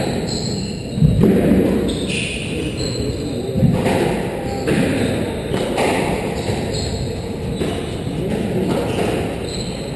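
Squash rally: the rubber ball thudding off rackets and the court walls in irregular strikes. The sharpest hits come about a second in and again around three and a half seconds.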